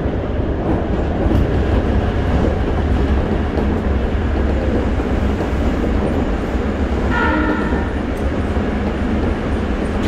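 Toei 5300 series electric train heard from inside the car while running at speed, a steady loud rumble of wheels on rail and the Mitsubishi GTO-VVVF traction drive. A brief pitched tone sounds about seven seconds in.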